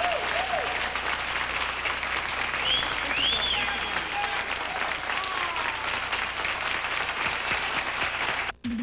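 Studio audience and performers applauding, a dense steady clapping with a few voices calling out over it. It cuts off abruptly near the end.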